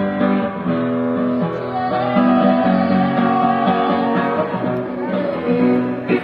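Street musician playing an acoustic guitar, a continuous instrumental passage between sung lines of the song.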